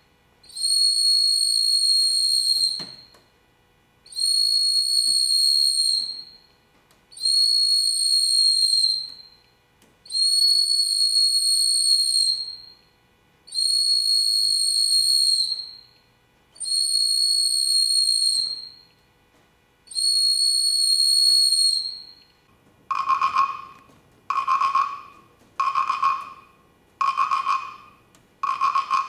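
A whistle blown in seven long, steady, high notes of about two seconds each, with short pauses between them. About 23 seconds in, it changes to shorter, lower toots, about one a second.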